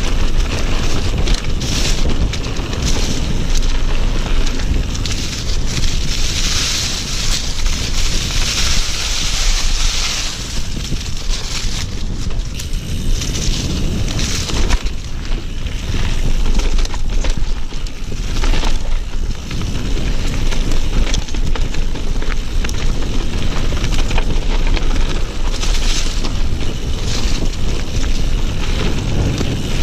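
Mountain bike descending a dirt trail: wind rumbling on the helmet or chest camera's microphone, with a continuous rush of knobby tyres rolling over dirt and dry fallen leaves. The hiss swells in stretches, the longest about a quarter of the way in.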